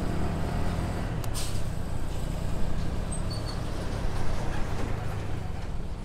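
Motor vehicle engine running with road and traffic noise, a low hum that is strongest in the first second. A sharp click comes about a second in.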